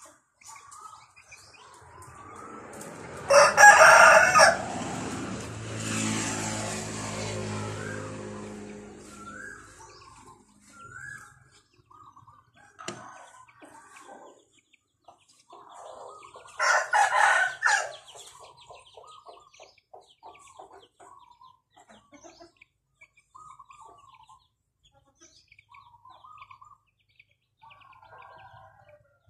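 A rooster crowing twice, about three seconds in and again about seventeen seconds in, with small birds chirping faintly in between.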